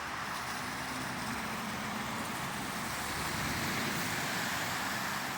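Steady road traffic passing: a continuous hiss of tyres with a low engine hum, growing a little louder past the middle.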